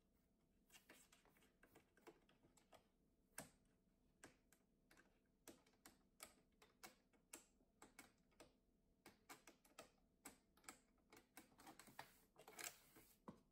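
Faint, irregular clicking and scratching of cats' claws and paws on a corrugated cardboard scratching tower as two cats play on it, with a longer scratchy burst near the end.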